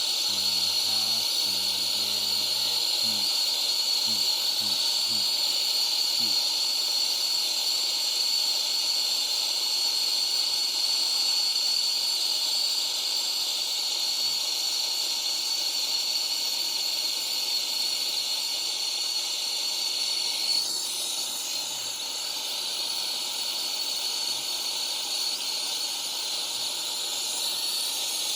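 Brazing torch flame hissing steadily while heating a leak repair on a copper evaporator coil. The hiss eases slightly after a brief tick about twenty seconds in.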